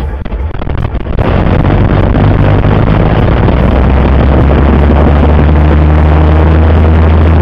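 Pitts biplane's piston engine starting: it sputters unevenly for about a second, then catches and settles into a loud, steady run with the propeller turning.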